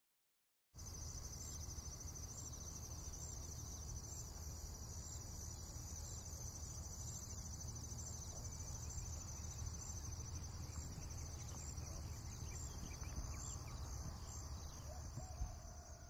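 Steady high-pitched insect chirring with a faint regular pulse, starting just under a second in, over a low steady rumble of outdoor ambience.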